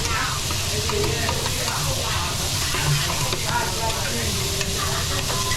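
Fried rice sizzling on a hot teppanyaki griddle while it is stirred and turned, a steady frying hiss.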